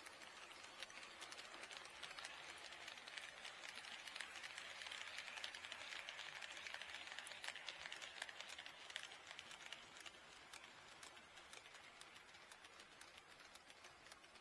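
KATO D51 HO scale model steam locomotive and its train running on the layout track: a faint rolling hiss with many small rapid clicks, swelling louder from about four to nine seconds in as it passes and then fading away.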